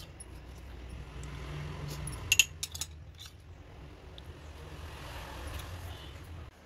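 Kitchen handling sounds over a steady low hum: a quick cluster of three or four sharp, ringing clinks a little over two seconds in, the kind made by bangles or a spoon knocking against bowls. The hum cuts off suddenly near the end.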